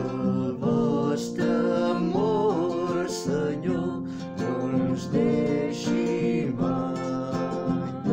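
Acoustic guitar strummed to accompany singing of a liturgical psalm refrain.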